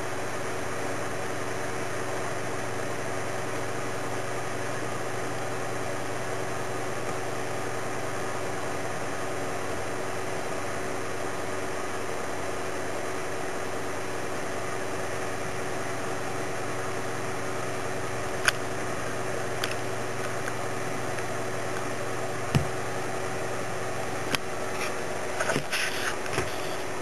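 Steady background hum and hiss, even throughout, with a few sharp clicks and light knocks in the last third.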